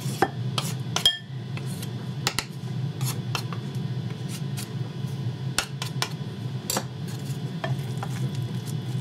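A wooden spatula and a metal utensil stirring and pressing a thick, sticky burger mixture in a glass bowl, with irregular clicks and taps of the utensils against the glass. A steady low hum sits underneath.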